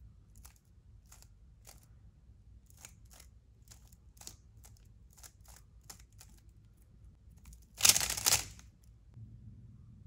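Layers of a stickerless 3x3 speed cube being turned by hand: a dozen or so separate clicking turns, then a loud, dense rattle of turning about a second long near the end.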